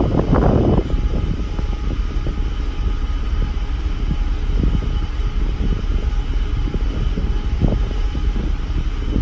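Steady low rumble of wind and the cruise ship moving through the sea, with a faint steady machinery hum above it. A louder rush of wind noise comes in the first second.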